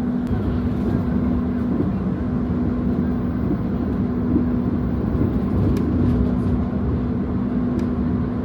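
Steady low rumble and hum inside a passenger train carriage, with a constant droning tone running underneath.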